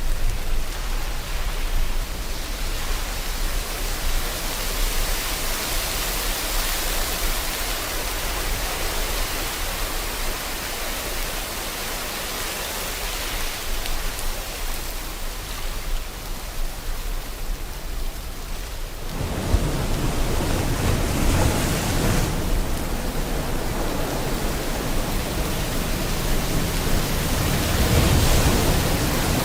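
Steady rain hiss mixed with ocean waves; about two-thirds of the way in, a deeper wave rumble swells in, and it surges again near the end.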